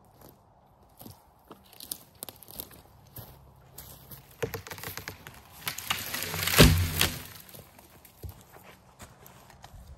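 Dry, rotten spruce branches and brush crunching and crackling as they are handled in cleanup, in irregular snaps and rustles. A louder swell of crackling builds and falls off around the middle, sharpest about six and a half seconds in.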